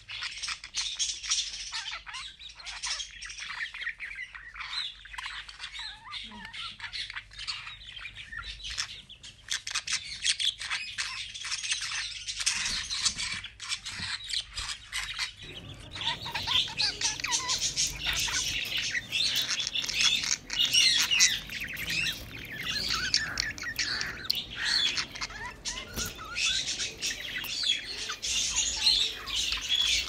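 Pet budgerigars chirping and chattering without pause, a dense run of short high chirps, growing louder about halfway through.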